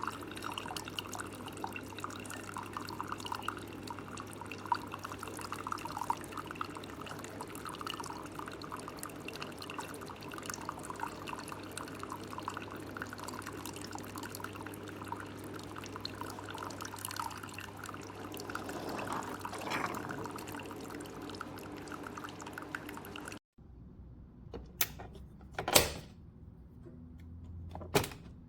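Cuisinart single-serve + 12-cup coffee maker brewing: hot water pouring and dripping through, with a steady low hum. The sound cuts off abruptly about 23 seconds in, followed by a few sharp knocks.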